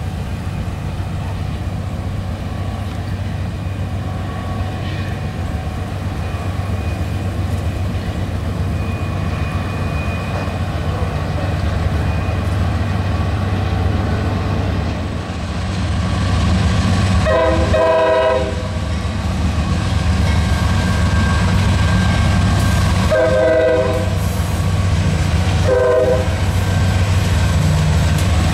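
Diesel locomotives of a Norfolk Southern freight train running with a steady low drone that grows louder as the train approaches. The multi-chime horn sounds three times: one long blast a little over halfway through, then two shorter ones.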